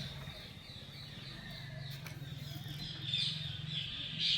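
Small birds chirping in quick repeated high notes, growing busier near the end, over a faint low steady hum.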